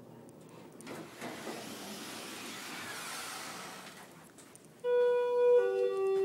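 Schindler 330A elevator's arrival chime: two clear electronic notes near the end, the second lower than the first, the correct Schindler tones. Before it comes a soft rushing noise lasting a few seconds.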